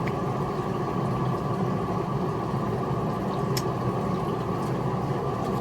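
A steady mechanical hum, like a running engine or motor, even in level, with a single faint click about three and a half seconds in.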